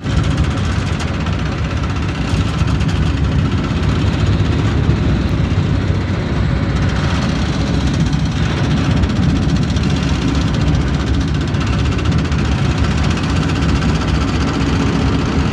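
Large mobile crane's diesel engine running steadily while it hoists a steel bridge beam.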